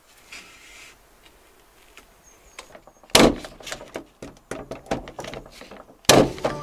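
Corded electric nail gun firing nails into wooden ceiling battens: two sharp shots, about three seconds in and again near the end, with lighter clicks and knocks between.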